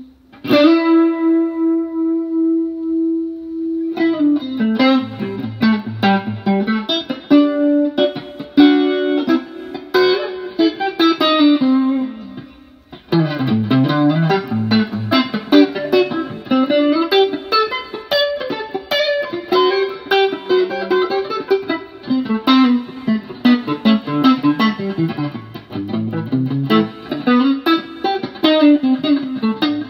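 Electric guitar played through a Danelectro Money Laundry rotary speaker emulator pedal, giving a spinning-speaker sound whose speed ramps up and down. One held note rings for a few seconds, then runs of picked notes and chords follow, with a brief pause about two-thirds of the way through.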